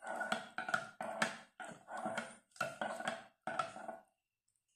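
Metal teaspoon clinking against the inside of a ceramic mug while stirring hot chocolate, about three clinks a second, each with a short ring. The clinking stops about four seconds in.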